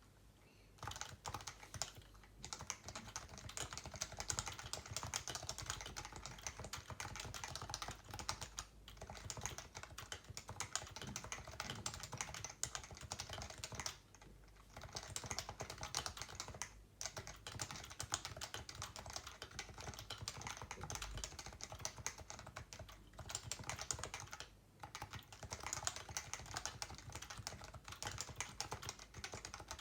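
Leopold FC660C keyboard with stock, unmodified Topre capacitive switches being typed on continuously: a fast, steady run of keystrokes broken by a few short pauses.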